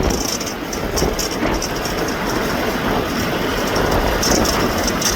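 Steady rumble inside a stopped semi-truck's cab: the diesel engine idling, with strong wind buffeting the truck.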